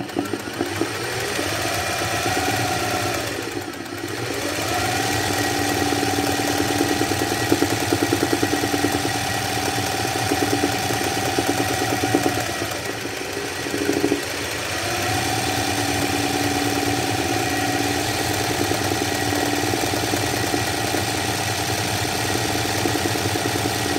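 Sewing machine running fast and steadily, stitching free-motion embroidery as the fabric is guided by hand. It slows briefly about four seconds in, and again around thirteen to fourteen seconds in, then picks back up to speed.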